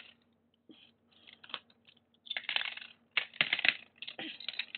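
Hard plastic LEGO bricks clattering and clicking as they are handled, moved and set down on a LEGO baseplate: scattered clicks at first, then dense runs of quick clicks through the second half.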